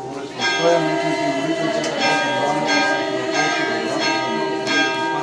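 Church bells ringing repeatedly, a strike about every two-thirds of a second with each stroke ringing on, over voices singing a chant.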